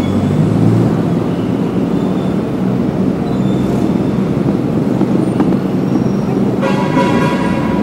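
Steady rumble of busy city road traffic: cars, buses and trucks passing. A high-pitched tone sounds for about a second near the end.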